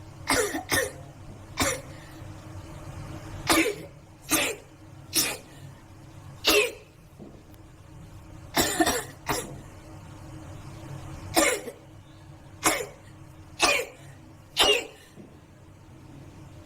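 A girl sneezing in a rapid fit: about thirteen short, sharp sneezes, some coming in quick pairs, spaced roughly a second apart.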